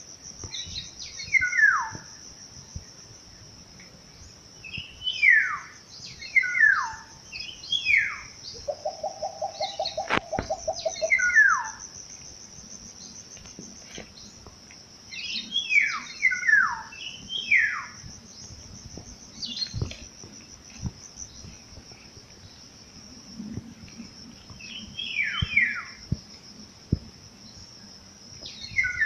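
A steady high insect trill, likely crickets, under a bird giving short calls that slide down in pitch, in clusters of two or three every few seconds. About nine seconds in, a lower pulsing call runs for about two seconds.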